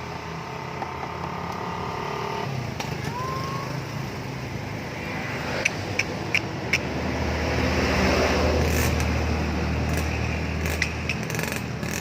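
A car runs, its noise swelling to a peak about two-thirds of the way through with a low hum underneath. A quick series of four sharp clicks comes about halfway through.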